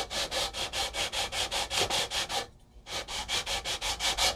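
A sanding beam is stroked quickly back and forth along a bare rosewood fretboard, at about five rasping strokes a second, with a short pause about two and a half seconds in. It is leveling off the old fret nibs and smoothing the board for new frets.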